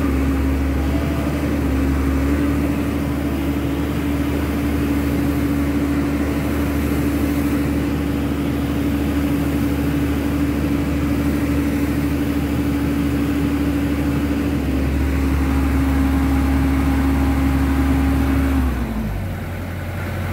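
Komatsu PC130 excavator running at high revs, with a strong low rumble and a steady whine held for most of the time. It drops back suddenly a little before the end.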